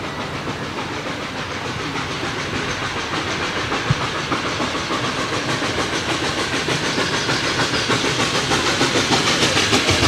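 Steam locomotive approaching, its exhaust beating in a quick, even rhythm over a hiss of steam, growing steadily louder. A single short knock about four seconds in.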